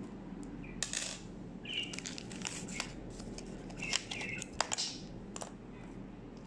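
Light clicks and taps from handling a phone camera and the classroom materials as it is moved across the table, with a few short high chirps in the background.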